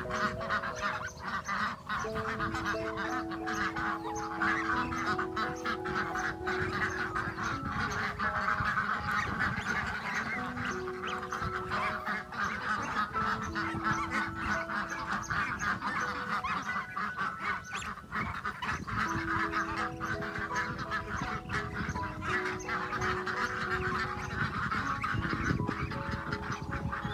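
Slow instrumental background music of held notes, over a constant chatter of fowl calling and the scratchy rustle of hands working dry rice bran into chopped grass.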